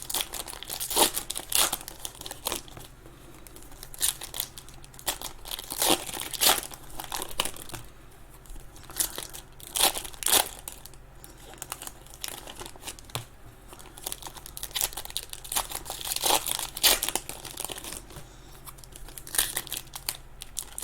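Trading card pack wrappers crinkling and tearing as packs are opened and cards handled, in irregular short crackles.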